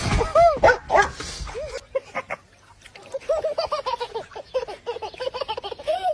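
Dogs barking and yipping: a few louder calls at first, then after a short pause a fast run of short yips.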